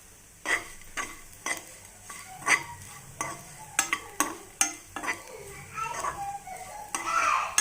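Potatoes frying in a pan are stirred with a utensil, which knocks and scrapes against the pan roughly twice a second over a faint sizzle.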